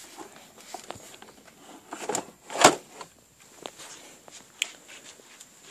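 Scattered light clicks and knocks of things being handled, with one louder knock about halfway through.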